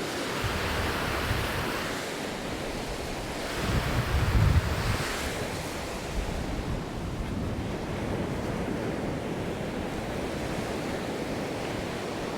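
Surf washing and breaking on a beach, a steady wash of noise with wind on the microphone, which rumbles loudest about four seconds in.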